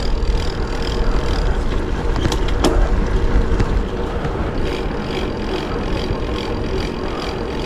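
Steady wind and road noise while riding a bicycle, the wind buffeting the microphone, with a couple of faint clicks about two and a half seconds in.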